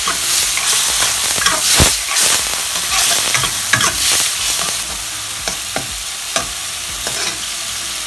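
Diced tomatoes and minced garlic sizzling in a hot oiled wok as a metal spatula stirs and scrapes them, cooking the tomatoes down into juice. The spatula clicks thin out after about five seconds, leaving a steady sizzle.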